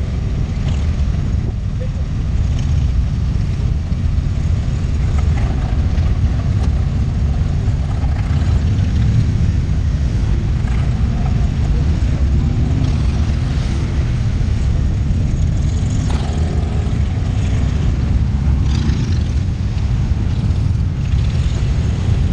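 Motorcycle engines running with a steady low rumble as a touring motorcycle rides slowly in a line of other motorcycles.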